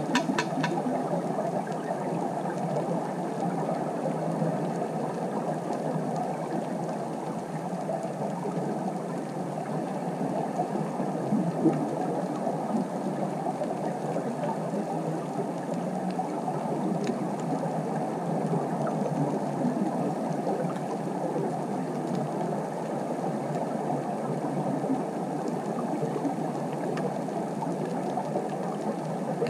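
Steady underwater ambient noise picked up by a camera in its underwater housing: a dull, even hiss with no distinct events, and a few faint clicks at the very start.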